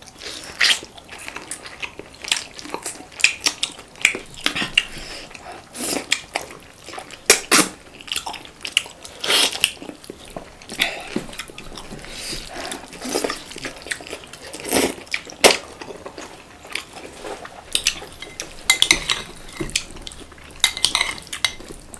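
Eating a chicken curry meal: irregular clinks and clicks of plate and cutlery, roughly one a second.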